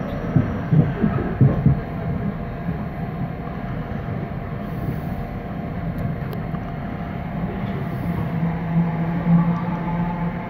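Passenger train running on the track, heard from inside the carriage: a steady rumble of wheels on rails, with a few knocks in the first two seconds. A low hum grows louder near the end.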